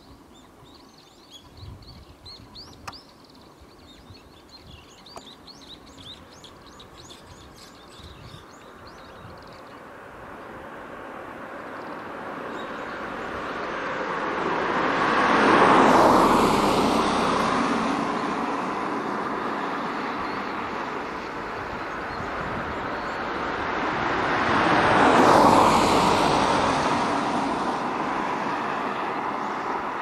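Birds chirping in short, high calls over the first few seconds. Then two motor vehicles pass one after the other, each swelling to a loud peak and fading, about ten seconds apart.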